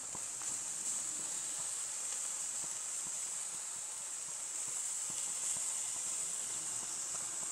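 Chicken drumsticks sizzling on a hot gas grill, a steady high hiss as sauce is brushed onto them, with a few faint ticks of the brush.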